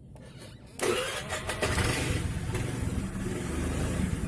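Honda Vario scooter engine starting about a second in, then running steadily.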